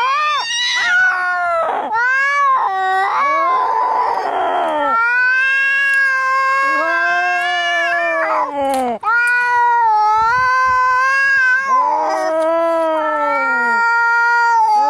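Angry cats caterwauling in a fight: long, drawn-out yowls that rise and fall, one after another, with a harsher, rasping cry about four seconds in.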